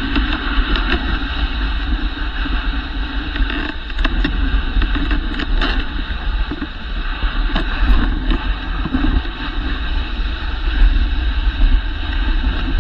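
A dog sled moving over a packed snow trail: a steady hiss and rumble from the runners on the snow, with a few sharp clicks from the sled. Wind buffets the microphone.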